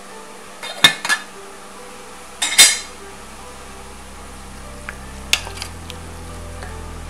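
Stainless steel pot and lid clanking as the pot is set down and the lid lifted off: two sharp clanks about a second in and a louder clatter at about two and a half seconds. A few light knocks follow from a wooden spoon stirring the ratatouille in the pot.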